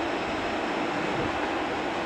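Steady rushing noise of a jet airliner's engines close by.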